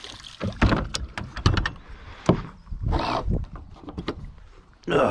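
A series of sharp knocks and clunks, with some rustling, as gear is handled and stowed on a bass fishing boat before moving to a new spot.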